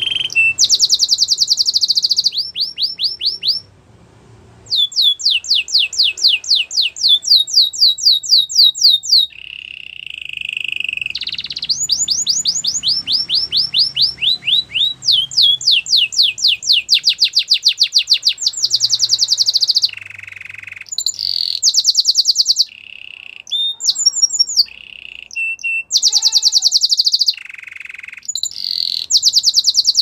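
Domestic canary singing: long rolls of rapid, repeated down-sweeping notes, several a second, alternating with buzzy lower passages and broken by short pauses.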